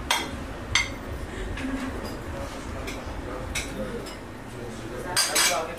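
Metal ladle and ceramic dishes clinking in sharp, scattered knocks, with a quick cluster near the end, over a steady murmur of voices and kitchen noise.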